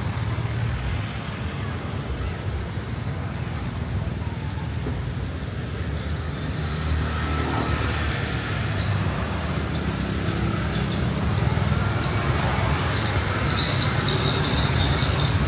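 Street ambience: a steady low rumble of road traffic, with no single event standing out.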